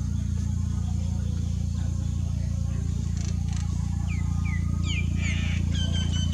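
Steady low hum throughout. From about four seconds in come a run of short, high chirps falling in pitch, then a longer high call held near the end.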